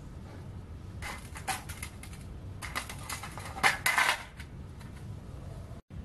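Steel tongs clinking and scraping against a small metal crucible and tools on a metal tray, with a run of sharp metallic clinks between about one and four and a half seconds in.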